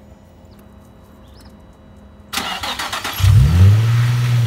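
Car engine being started: after about two quiet seconds the starter motor cranks briefly, and a little after three seconds in the engine catches and settles into a steady fast idle.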